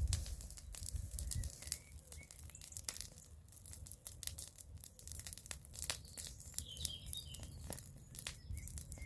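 Bonfire crackling, wood snapping and popping in irregular sharp cracks over a low rumble. A few birds chirp in the background, most busily about seven seconds in.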